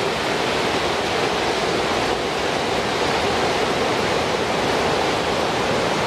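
Waterfall: water pouring steadily over a low spillway into a pool, a continuous, even rush.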